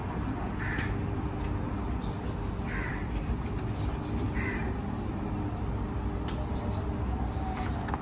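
A crow cawing three times, roughly two seconds apart, over a steady low background rumble.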